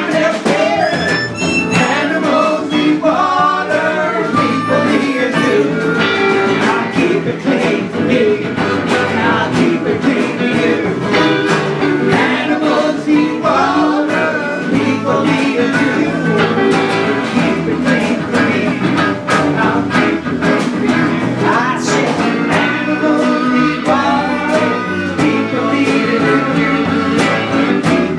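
Folk band playing a song: strummed acoustic guitar with drums and a harmonica played into a microphone, with no break.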